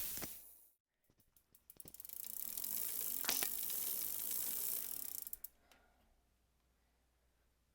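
Bicycle rear freehub ticking rapidly as the wheel freewheels, for about four seconds before cutting off sharply. A louder sound dies away in the first half second.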